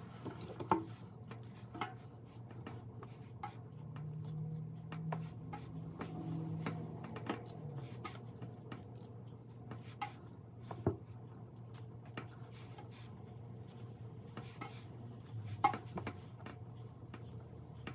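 Raw shrimp being peeled by hand: scattered soft clicks and crackles of the shells coming off, over a steady low hum.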